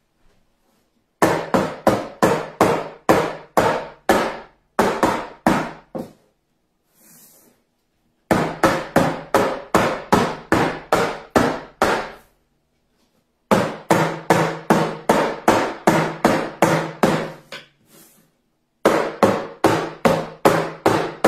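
Metal cake pans full of batter being banged repeatedly on a wooden countertop to knock the air bubbles out: four runs of quick knocks, about four a second, each run carrying a low ringing note.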